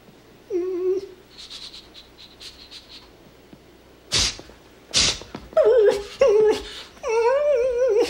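A dog whimpering and whining in a string of short, wavering, pitched cries. Two short breathy bursts come about halfway through.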